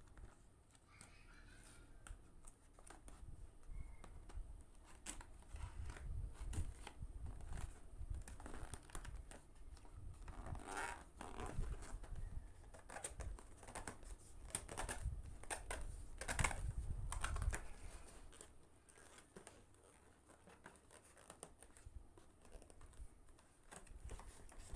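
Hands handling and opening packaging: irregular crinkling, rustling and small clicks, busiest in the middle and dying down near the end.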